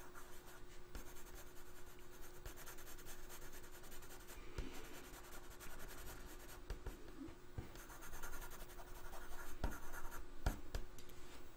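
Coloured pencil scratching on paper in many short shading strokes, a little louder over the last few seconds.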